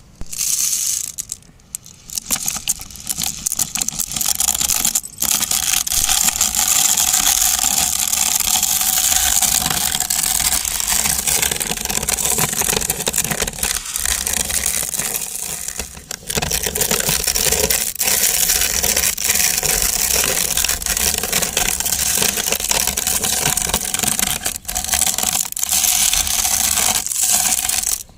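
Electric grinder crushing hard dry macaroni pasta: the motor whirs while the pasta pieces rattle and crunch, with the sound dipping for a moment a few times as it runs.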